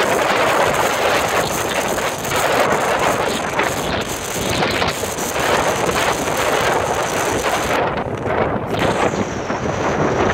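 Strong wind buffeting the microphone in uneven gusts.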